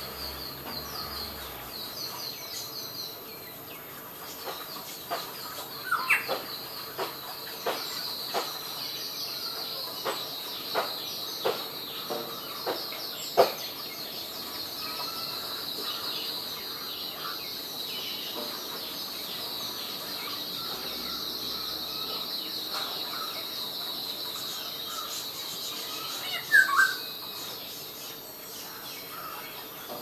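Small birds chirping: a high, fast-pulsing chirring that never stops, a run of sharp chips about five to fourteen seconds in, and a short call that falls in pitch near the end.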